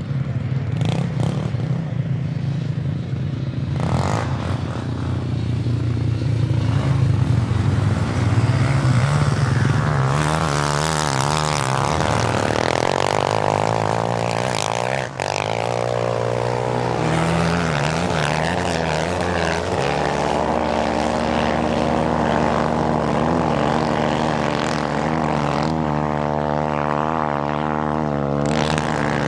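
Quad bike (ATV) engines running and revving, their pitch rising and falling continuously as the quads ride the sand, with the sound loudest around the middle.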